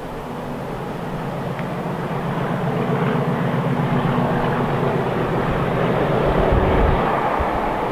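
Class 37 diesel locomotive approaching under power, its English Electric V12 engine running with a steady note that grows steadily louder as the train draws near.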